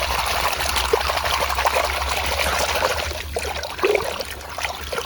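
Running water pouring and splashing over a dirt-covered toy elephant as it is rinsed clean, a steady rushing hiss that eases somewhat after about three seconds. A low steady hum runs underneath.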